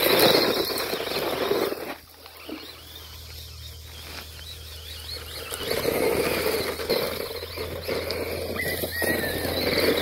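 Electric RC monster truck driven hard on gravel: its motor whines up and down with the throttle while the tyres skid and scatter loose gravel. Loud at the start, quieter for a few seconds, then loud again in the second half.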